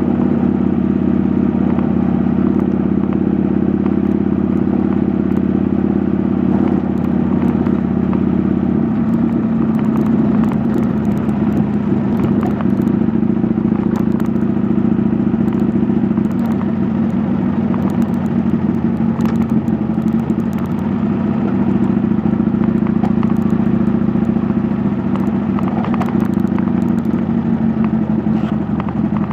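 Harley-Davidson motorcycle's V-twin engine running steadily at low speed, heard from the handlebars while riding over a gravel track, with scattered clicks and rattles.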